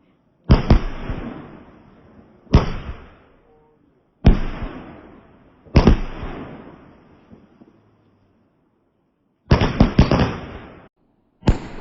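Loud fireworks going off in a series of about six sharp bangs, some in quick doubles or triples, each followed by a fading crackle and rumble. A cluster of several cracks comes around three quarters of the way through.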